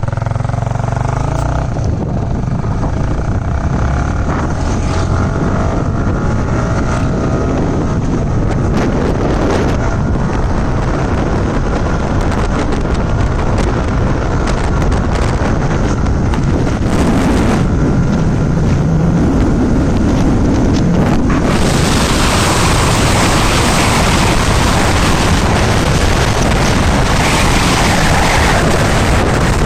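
A moving vehicle's engine running under a steady rush of wind and travel noise, its pitch gliding up and down in the first part. About two-thirds of the way through, the wind noise jumps suddenly louder and brighter.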